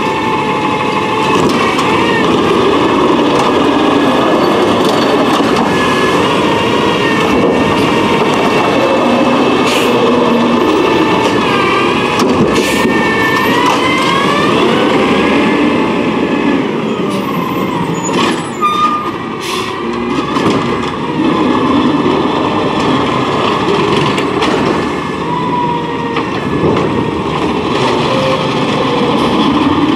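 Peterbilt 320 refuse truck with a Heil Mini PenPac side-loader body, its engine running while the hydraulics work the cart-loading arm and conveyor. A whine rises and falls in pitch several times. Near the end the truck pulls away.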